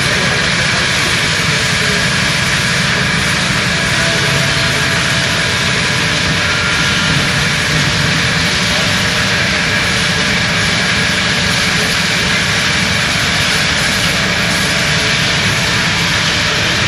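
Industrial machinery running steadily: a loud, even mechanical noise with faint steady high-pitched whining tones.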